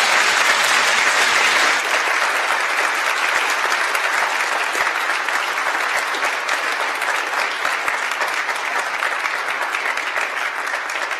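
A large seated audience applauding, a dense patter of many hands that is strongest for the first couple of seconds and then carries on a little softer.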